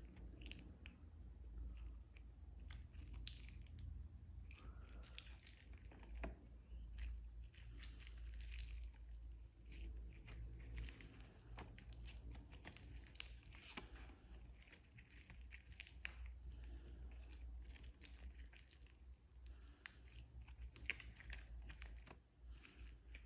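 Blue slime with glitter being kneaded and stretched by hand, giving faint, irregular crackling clicks and small pops throughout, with one sharper snap about halfway through.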